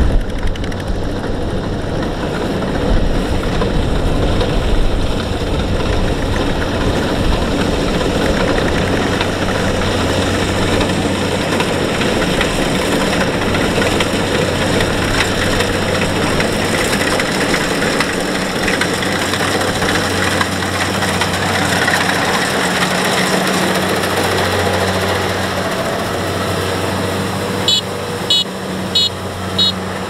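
Kubota DC-70 combine harvester's diesel engine running steadily as the machine cuts rice. A quick run of short, high chirps near the end.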